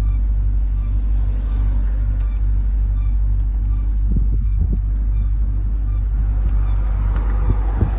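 Jeep Grand Cherokee Trackhawk being driven: a steady low drone, with faint, short, high squeaks repeating through the first half and a few low thumps in the middle and near the end.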